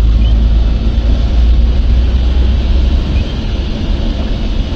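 Steady, loud low rumble of wind buffeting the microphone, mixed with road and motor noise from the moving vehicle it rides on.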